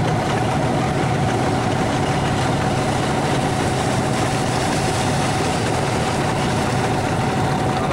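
A boat engine running steadily, a constant even hum that holds the same pitch and level throughout.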